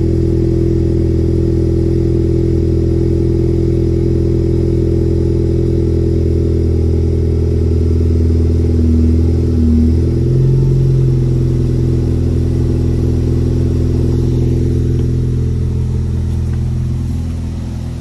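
A 2013 Ford Focus ST's 2.0-litre turbocharged four-cylinder idles steadily through a 2.5-inch Magnaflow exhaust, heard at the tailpipes, about a minute after a cold start. The idle note shifts about halfway through, and the sound grows a little quieter near the end.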